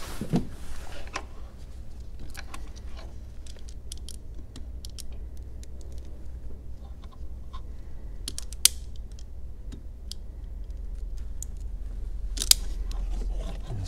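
Hand crimping pliers clicking and creaking as a heat-shrink butt connector is crimped onto a red cable, with small scattered clicks of handling. A sharper click comes past halfway and another near the end.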